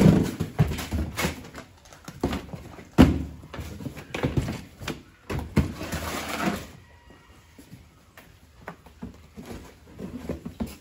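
Cardboard box dragged and bumped across a concrete floor: scraping and repeated knocks, with one loud thud about three seconds in. It goes much quieter after about six and a half seconds, leaving only a few faint knocks.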